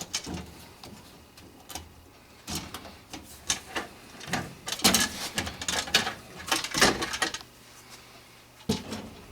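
Irregular clicks, clatters and knocks from the sheet-metal access panels of a heat pump air handler being handled and taken off, busiest in the middle.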